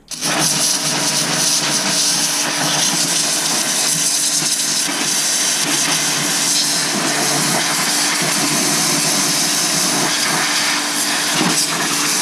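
Pressure washer spraying a narrow 0-degree jet onto an excavator's greasy steel pivot joints. There is a steady loud hiss of the water jet over the even hum of the pump, starting suddenly as the trigger is pulled.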